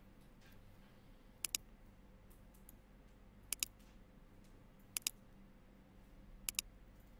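Computer mouse clicking four times, each click a sharp close pair of ticks, over a faint steady electrical hum.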